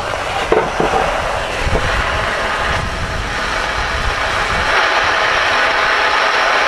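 Stryker SR-447HPC ten-meter radio on the air, giving a steady rushing static hiss from its speaker, with a few small clicks near the start. The hiss grows stronger about two-thirds of the way through while a front-panel knob is being turned.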